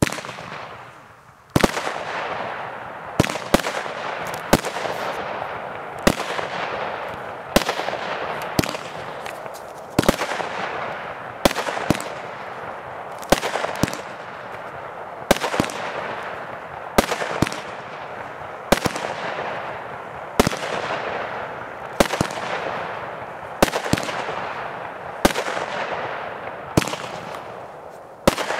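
Executioner aerial firework firing a long run of shots, one every one to two seconds. Each shot is a sharp bang trailing off over about a second.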